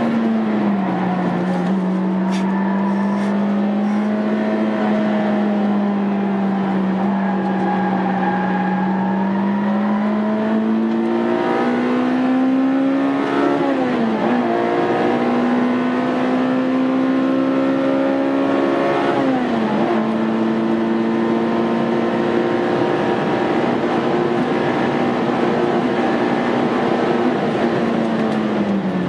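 Honda Integra Type R's four-cylinder engine running hard under racing load, its pitch climbing slowly through the revs and dropping sharply at two upshifts around the middle.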